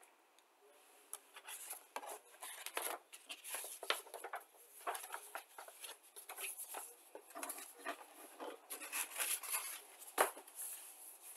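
Paper rustling and crinkling as a model kit's instruction sheet and decal sheet are handled, folded and picked up, with one sharper knock a little after ten seconds in.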